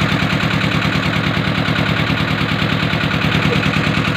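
Passenger boat's engine running steadily with a rapid, even chugging, with the rush of water along the hull over it.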